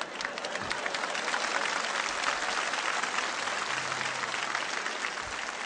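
Audience in a concert hall applauding: many hands clapping steadily.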